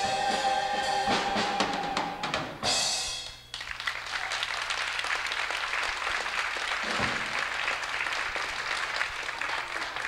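A show choir and band end a song on a held final chord with drum hits, cutting off about three and a half seconds in. Audience applause follows and runs on steadily.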